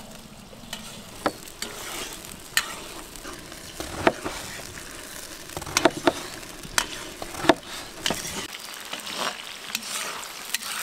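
Meat frying and sizzling in hot fat in a cauldron, stirred with a metal ladle that clinks and scrapes against the pot, with sharp knife taps on a wooden cutting board in between.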